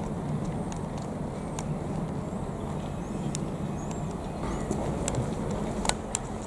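Direct Rail Services Class 57 diesel locomotives idling, their EMD 645 two-stroke V12 engines giving a steady low drone. A few sharp clicks come near the end.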